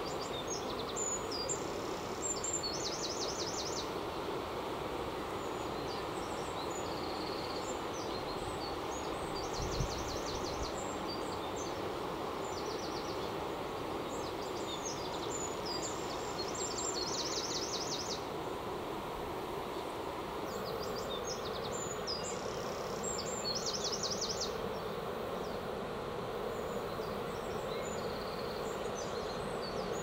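A songbird repeating a short high song that ends in a fast trill, every few seconds, over a steady rushing background noise. A single low thump about ten seconds in.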